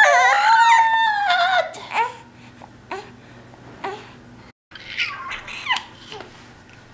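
Young infant, about 15 weeks old, squealing and cooing: one long high, wavering squeal, then a few short coos, and after a brief dropout another coo that falls in pitch.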